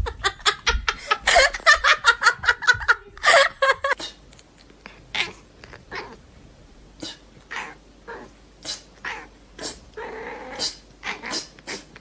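Domestic pet sounds, mostly a cat's cries, dense for the first three seconds. After about four seconds they are followed by a sparser run of separate short sharp sounds.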